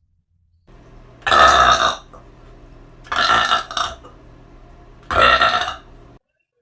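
A person burping loudly three times, about two seconds apart, each burp lasting well under a second.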